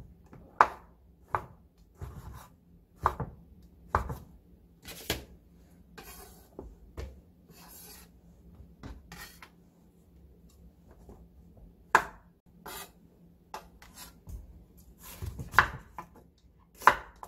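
Chef's knife chopping king oyster mushroom and then red onion on a wooden cutting board: separate knocks of the blade against the board about once a second, with a quieter stretch in the middle and quicker strokes near the end.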